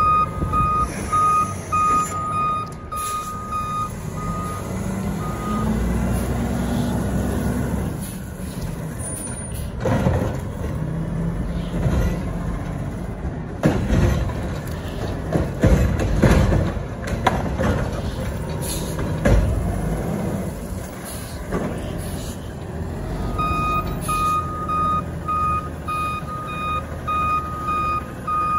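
Front-loader garbage truck's reversing alarm beeping repeatedly at the start and again near the end, over its diesel engine running. In between, the truck works with a run of metal clanks and knocks.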